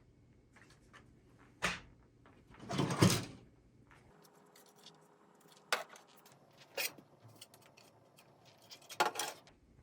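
Handling noise from fire alarm devices being taken out of a box and set down: scattered clicks and knocks, the loudest a short rustle about three seconds in.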